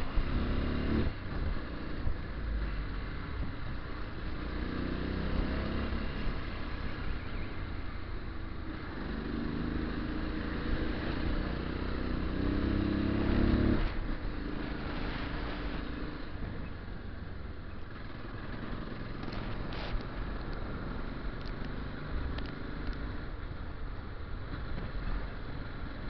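Motorcycle engine pulling through the gears, its pitch rising in stretches and dropping sharply about halfway, then running more evenly, with steady wind rumble on the microphone throughout.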